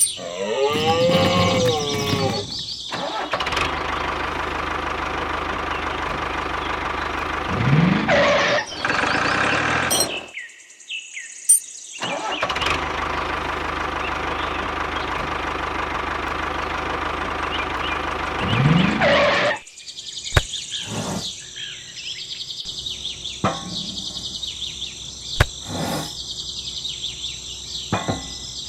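Small engine of a miniature DIY tractor running steadily in two long stretches, each ending with a rising rev before it stops. Afterwards birds chirp over light ambience with a few sharp clicks.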